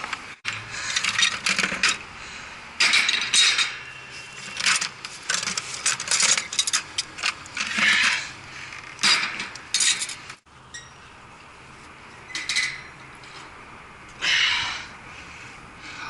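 Irregular metal clattering and scraping of hand tools and handling on a cooling tower's steel grating and fittings, in short bursts with clicks between them.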